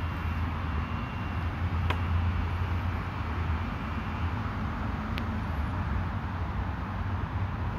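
Steady low rumble of distant road traffic as outdoor background, with two faint clicks, about two and five seconds in.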